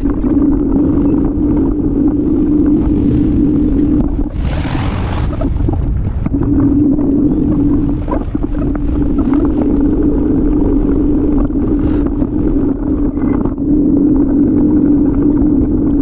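Steady rumble of wind and street noise on a moving bicycle's camera microphone, with a constant hum that drops out for about two seconds. There is a brief hiss about four and a half seconds in and a short high-pitched blip near thirteen seconds.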